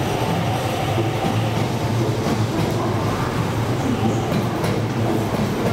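MTR East Rail Line R-Train, an electric multiple unit, pulling out and rolling along the track. A steady rumble of wheels on rails with a low hum.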